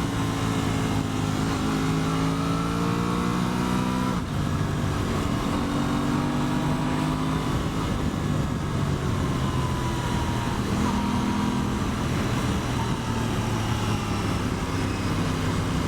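Aprilia Tuono 660's parallel-twin engine pulling under acceleration: its note rises for about four seconds, drops at a gear change, then runs fairly steady with another gentle rise later, over a steady rush of wind.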